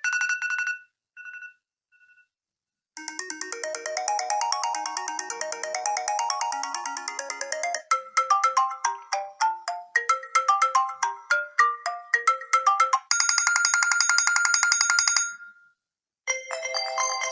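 Apple iPhone SE preset ringtones previewed one after another, several different short electronic melodies, each cut off after a few seconds with brief silences between. It opens with a few soft beeps, then a rising run of notes, then a plucked, rhythmic tune. Near the middle comes a steady, fast-pulsing buzzy ring on one pitch, and another melody starts near the end.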